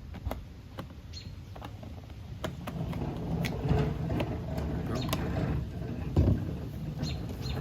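Hard plastic being handled: scattered clicks, scrapes and creaks from the soap bottle and the pressure washer's detergent reservoir, with a dull thump about six seconds in.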